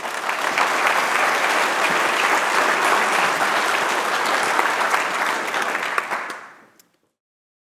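Audience applauding, fading out about six and a half seconds in.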